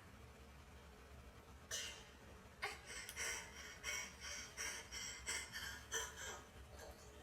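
Oral-sex sounds from an adult video: a run of short wet mouth sounds and breaths, about two a second, from about two seconds in until shortly before the end.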